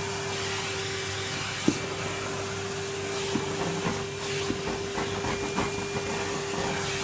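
Hetty cylinder vacuum cleaner running with a steady hum and rush of air. There is a sharp knock about two seconds in, and lighter knocks a few seconds later.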